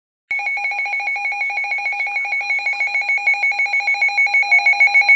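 Weather alert receiver's alarm going off for a severe thunderstorm warning: a loud electronic trill of two high tones pulsing about eight times a second, starting abruptly and getting a little louder near the end.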